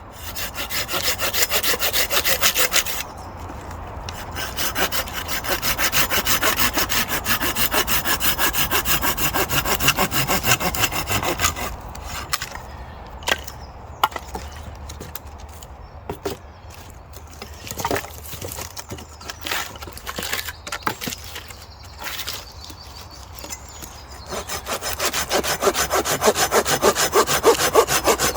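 Folding hand saw cutting through wood with fast, even back-and-forth strokes in two long runs, pausing at about three seconds and stopping about twelve seconds in. Scattered knocks and snaps of wood being handled follow, and sawing starts again near the end.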